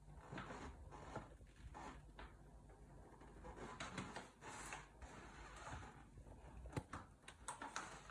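Faint crinkling and rustling of a paper gift bag and its tissue paper as a cat noses into it, with scattered light clicks and short rustles.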